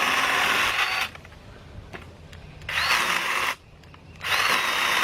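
Mini chainsaw running in three bursts as it cuts branches. Each burst has a high motor whine that climbs as the chain spins up. The first burst stops about a second in, and the other two are short pulls of the trigger near the middle and the end.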